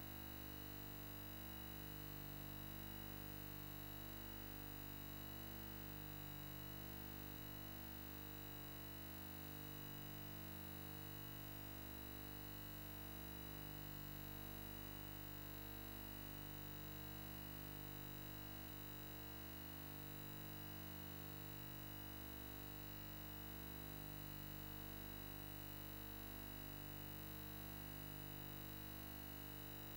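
A steady hum made of several tones, swelling and fading slightly about every two seconds.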